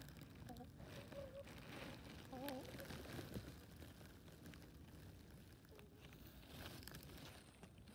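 Hens softly murmuring with a few short, wavering clucks while foraging, over faint scattered ticks and rustles. Quiet throughout.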